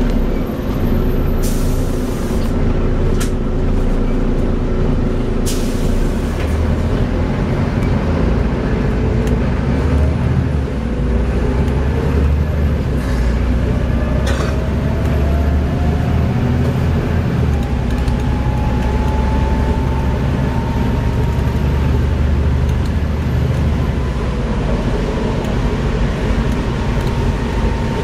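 Volvo B7TL double-decker bus's six-cylinder diesel engine running under way, heard on board, with a ZF gearbox whine that rises slowly and then holds steady. A few short air hisses sound near the start and again about halfway through.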